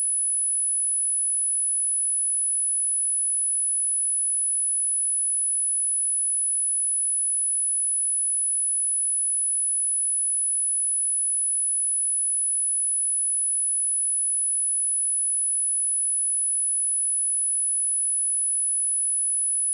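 A pure sine-wave test tone at 11014 Hz, held steady at one high pitch with no change in level.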